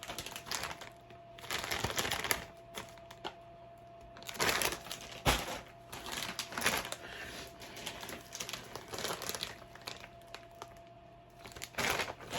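Chip bags crinkling as they are picked up and handled, in several separate bursts of rustling.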